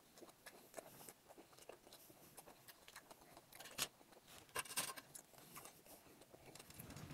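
Faint chewing close to the microphone: scattered soft mouth clicks, with a few louder ones near the middle.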